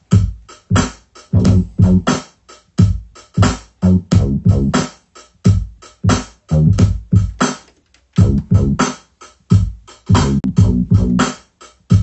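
Chopped sample stabs with heavy bass, played from the pads of an Akai MPC 2500 sampler: short hits that cut off abruptly, in an uneven rhythm with brief silent gaps between them.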